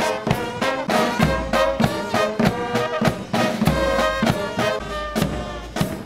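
Marching brass band playing: trumpets and sousaphones over steady bass-drum and snare beats.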